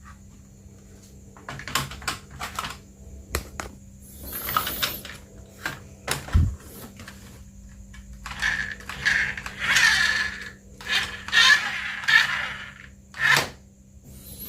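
Handling noises: sharp clicks and rustling of packaging or plastic parts being handled, with a single low thump about six seconds in.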